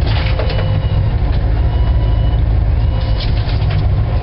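Steady low rumble of a trolling charter fishing boat's motor running under way, with a couple of faint thin tones above it.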